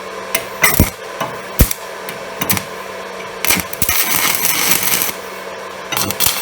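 Stick-welding arc being re-struck with a used UONI 13/55 electrode: several clicks and short sputtering arc flashes as the rod is tapped on the steel plate, the arc catching and crackling for about a second around the middle, breaking off, then sputtering again near the end. Re-striking by touching comes hard for this electrode; it restarts more readily by scratching.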